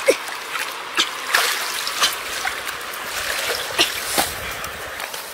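Water splashing and trickling as a wicker fish basket is moved through shallow water and tipped, water pouring out through the weave, with several sharper splashes along the way.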